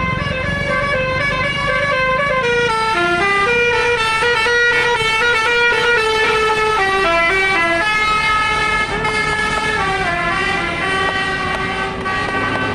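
Tourist bus's telolet horn playing a tune: a string of loud held horn notes stepping up and down in pitch, changing every quarter to half second, over a low engine hum.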